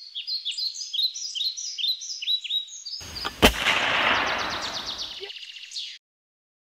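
Birds chirping in quick repeated calls, then a sudden rush of noise and a single sharp shot-like crack about three and a half seconds in, the wash fading out about two seconds later.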